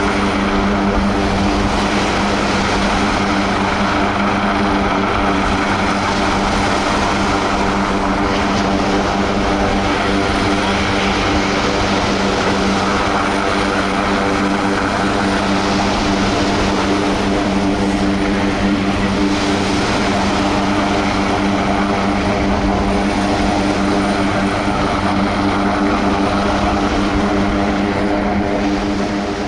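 Propeller aircraft engine running loud and steady at one unchanging pitch.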